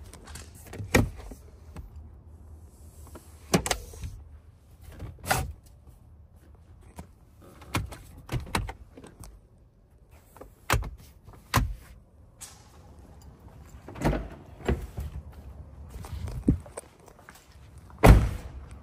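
Handling noise inside a car cabin: about a dozen knocks and thuds at irregular intervals, the loudest near the end.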